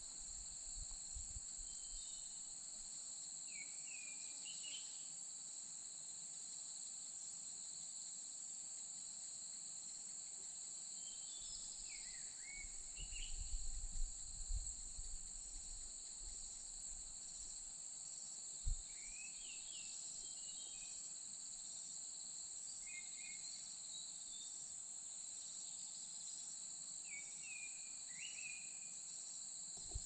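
Steady high-pitched drone of insects, with short chirping bird song phrases repeating every several seconds. A few low bumps come about halfway through, followed by a single sharp knock.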